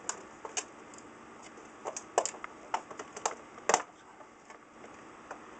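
Irregular plastic clicks and light knocks as hands handle and open the plastic case of a Pennwood Numechron model 770 clock, the loudest knock about two thirds of the way through.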